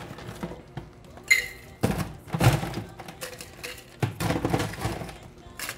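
Ice cubes scooped and dropped into a stainless-steel cocktail shaker tin, clattering in a few separate bursts as the tin is filled with plenty of ice.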